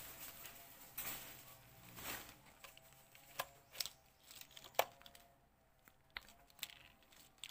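Light handling noise of a clamp meter's test leads and probes: scattered soft clicks and rustles, about eight in all, the sharpest a little under five seconds in.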